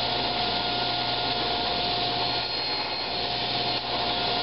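Table saw running steadily while a small wood segment is fed through the blade on a miter sled; the sound changes and dips briefly for about a second, starting about two and a half seconds in, as the blade cuts.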